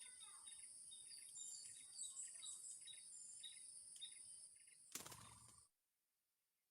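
Short high bird chirps repeating about twice a second over a steady high-pitched insect drone. A click comes about five seconds in, and then all sound cuts off abruptly.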